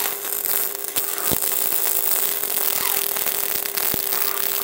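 MIG welding arcs from a Smart Mix 232 welder crackling steadily, one gun running gasless flux-core wire and the other gas-shielded ER70S-6 wire, over a steady hum with a few sharp ticks.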